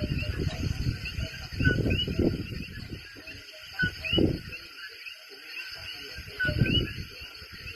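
Coquí frogs calling at night: repeated two-note 'co-quí' chirps, a lower note and then a higher rising one, over a steady high insect trill. Irregular bursts of low rumble come and go, loudest about 2, 4 and 6.5 seconds in.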